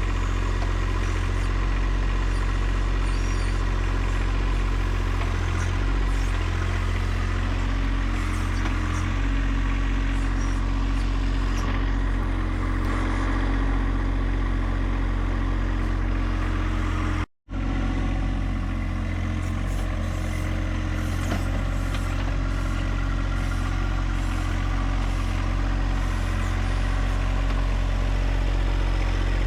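John Deere 1025R compact tractor's three-cylinder diesel engine running steadily, with the load rising and falling slightly. The sound cuts out for an instant about seventeen seconds in, then goes on.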